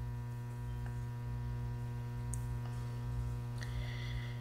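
Steady electrical mains hum, with a faint rustle near the end.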